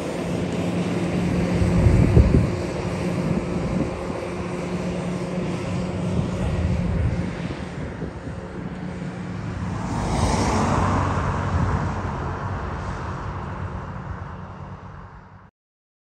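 JCB 419S wheeled loader's diesel engine running steadily as it drives past on the road and away, loudest about two seconds in. A broad rushing noise swells about ten seconds in, then the sound fades and cuts off suddenly shortly before the end.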